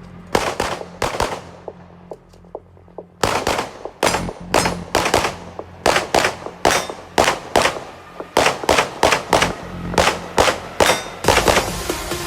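Handgun shots fired in quick strings, as in a practical shooting stage: three shots, a pause of about two seconds, then rapid volleys of several shots each, a few a second.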